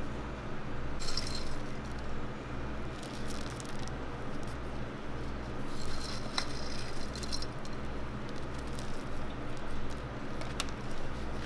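Small chocolate cereal rings rattling and clinking in a few short bursts as they are scattered onto a whipped-cream waffle cone, over a steady low pulsing hum.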